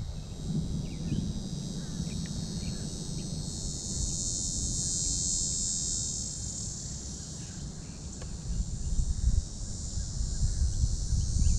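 Insects chorusing outdoors, a steady high buzzing that swells a few seconds in and eases off after the middle, over a low rumble on the microphone.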